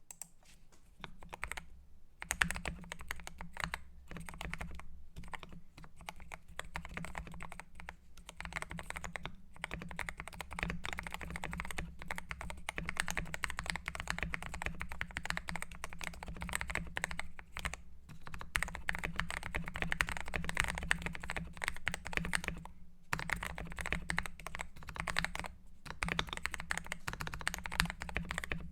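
Fast, continuous typing on a GMK67 mechanical keyboard with lubed Gateron Black linear switches: a dense run of key presses and bottom-outs, broken by a few short pauses.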